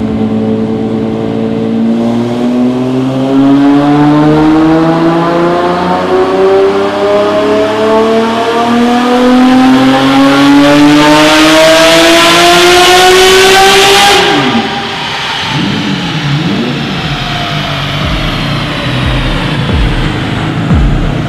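Twin-turbo Lamborghini Murciélago SV's straight-piped V12 making a full-throttle dyno pull on wastegate boost. The revs climb steadily for about fourteen seconds toward 8,200 rpm, with a rising hiss near the top. Then the throttle closes: the revs drop sharply and the engine runs down unevenly while a faint high whistle falls away.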